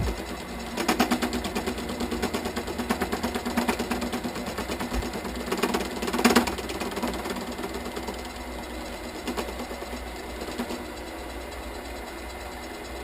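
Small metal lathe running, with a fast, even ticking rattle. It is louder and busier in the first half, with brief louder peaks about a second in and about six seconds in, then settles to a steadier run.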